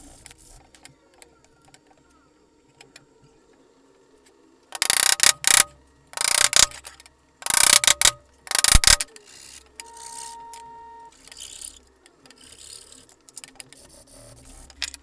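Four loud rasping strokes of a hand tool scraping across wood, each lasting about half a second to a second, followed by fainter scrubbing of hand-sanding on the wooden frame.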